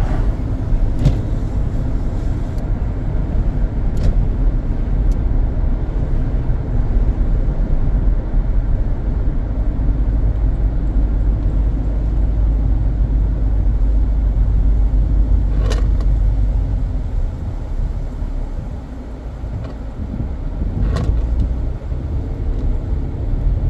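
Wind rushing and buffeting in through the open windows of a moving car, over a heavy low rumble of tyre and road noise, from strong post-hurricane winds. It eases briefly about three-quarters of the way through, and a few sharp clicks sound over it.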